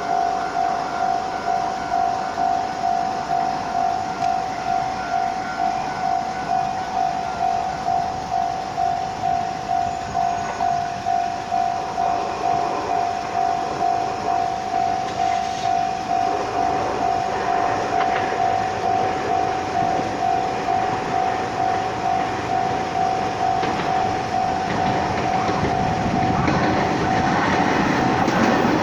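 Japanese level-crossing warning bell ringing steadily, a single electronic tone pulsing about twice a second. From about halfway an approaching electric train grows louder, becoming loud near the end as it reaches the crossing.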